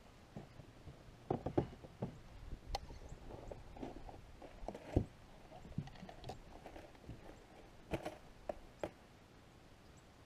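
Scattered light knocks and clicks of gear being handled in a small fishing boat, coming in short irregular clusters with quiet between.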